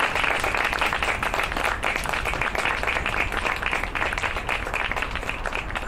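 A small group of people applauding by hand, the claps thinning out and fading toward the end.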